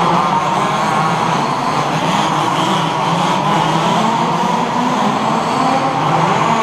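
Two-stroke petrol engines of 1/5-scale HPI Baja RC buggies running in a race, a continuous buzz whose pitch wavers up and down with the throttle.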